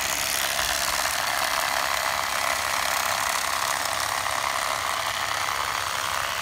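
Electric fillet knife running steadily with an even motor buzz as its blades slice a flounder fillet away from the backbone.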